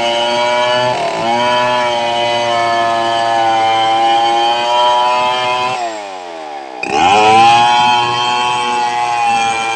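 Home-built chainsaw modelled on the Stihl 070, a large two-stroke, running at full throttle while ripping medang timber lengthwise. The note dips briefly about a second in. Near the six-second mark the revs fall away, and about a second later they are brought sharply back up.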